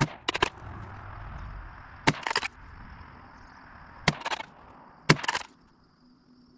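Gunshots: four sharp cracks, near the start, about two seconds in, about four seconds in and a second later, each trailed by a brief rattle of smaller cracks.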